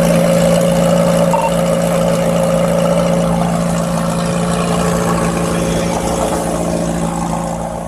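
Vehicle engines idling with road traffic: a steady engine hum over noise, slowly getting quieter.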